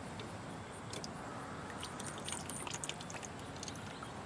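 Faint scattered light clicks and ticks from hand work on a rear brake caliper's bleeder during brake bleeding, over a low steady background.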